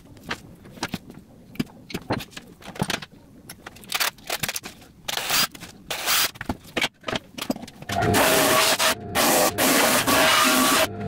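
Scrapes and knocks of handling and marking thin plywood, then a cordless drill boring short holes through it around the middle. About eight seconds in a louder power tool starts running steadily, cutting out briefly twice.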